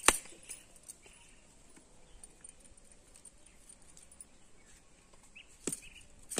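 Two sharp cracks of a heavy chopping knife striking a husked coconut held in the hand, one right at the start and one near the end, with a few faint taps between.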